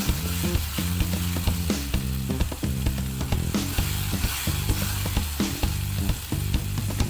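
A berry sauce of blueberries and blackberries simmering and sizzling in a small saucepan while a wooden spatula stirs it, with short scraping clicks against the pan. Background music plays underneath.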